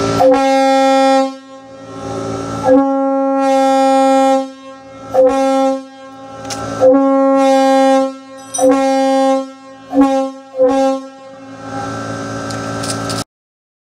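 Locomotive air horn blown in a series of blasts on one steady note, two long ones first, then several shorter ones. A fainter steady tone follows and cuts off suddenly near the end.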